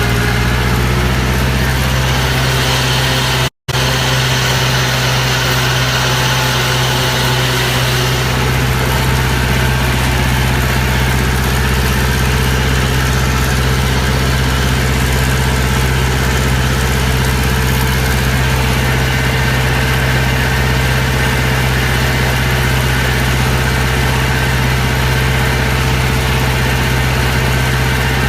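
A farm machine's engine idling steadily, with a deep, even hum. The sound drops out completely for a split second a few seconds in.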